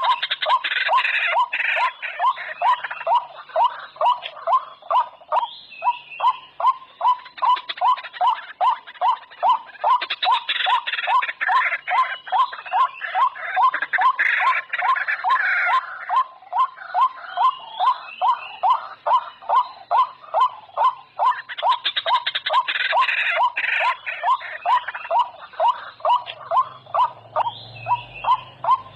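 White-breasted waterhen (burung ruak) calling: a steady run of short notes, about two or three a second, joined every few seconds by louder, harsher calls.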